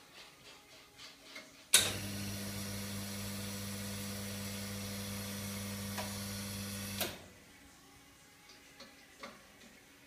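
Wega Atlas two-group espresso machine's pump running: a click a little under two seconds in, then a steady low hum with a hiss for about five seconds, cut off by another click. Faint handling ticks before and after.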